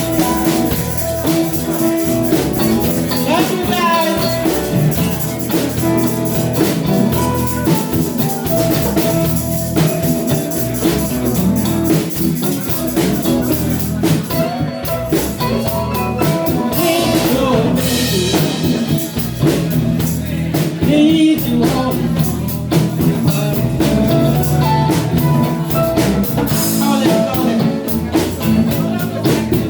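A cover song played by a band with a drum kit, with a singing voice at times.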